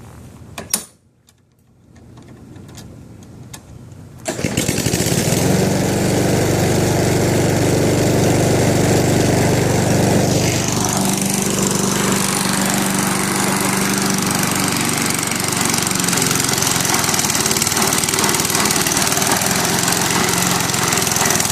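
A brief loud knock under a second in, then a gasoline lawnmower engine starts about four seconds in and runs steadily and loudly, its sound shifting about ten seconds in. The owner says the mower is dying.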